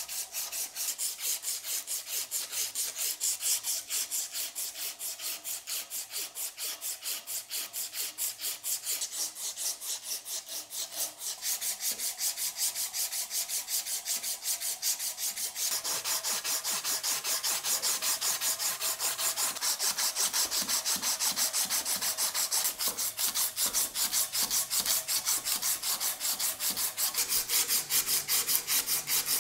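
A strip of waterproof abrasive paper pulled rapidly back and forth around a steel pistol barrel, shoe-shine style, at about three to four strokes a second: sanding away pitting and lathe marks. The rasping grows louder about halfway through.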